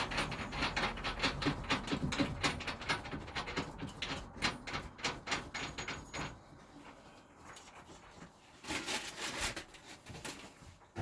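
Rapid clicking and rattling of small metal parts as washers and a nut are worked onto a skin fitting through the steel hull, for about six seconds; then it goes quieter, with a brief burst of noise about nine seconds in.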